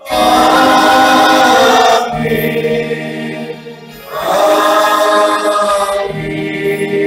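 Church choir singing. Two loud phrases of about two seconds each, with a quieter low held note between them.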